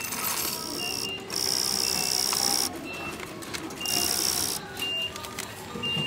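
Self-checkout payment machine giving change: a short mechanical whir from about a second in, with repeated short high electronic beeps and shop background music.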